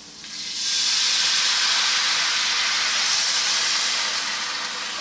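Red wine and chicken broth poured into a hot stainless-steel skillet of sautéed shallots, hissing and sizzling loudly as the pan is deglazed. The hiss builds up within the first second and eases slightly near the end.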